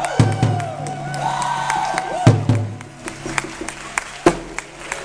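Amis traditional music: voices hold long high calls that drop away in pitch at their ends, over a low drone and a big drum struck about every two seconds, with lighter clicks between.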